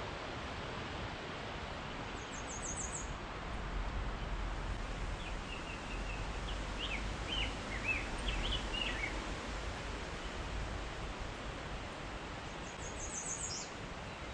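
Songbirds calling over a steady outdoor hiss: a short, fast high trill about two seconds in and again near the end, and a run of varied chirping notes in the middle.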